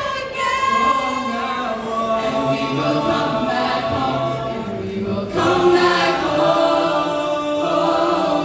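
Mixed choir of soprano, alto, tenor and bass voices singing a cappella through microphones and loudspeakers, with sustained chords; the sound dips briefly about five seconds in and comes back louder.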